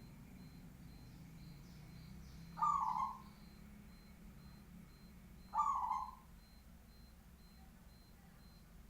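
Zebra dove (perkutut) cooing: two short calls about three seconds apart.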